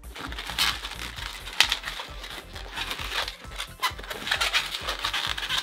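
Inflated latex 160 modelling balloons squeaking and rubbing against the fingers and each other in short, irregular strokes as the petals are bent over and massaged to make them curl.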